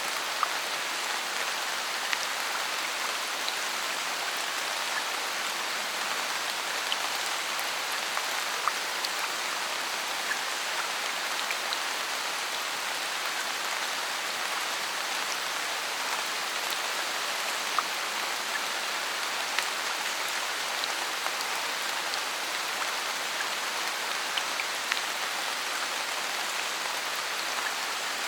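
Steady rain falling in a forest, an even hiss with scattered individual drops pattering close by.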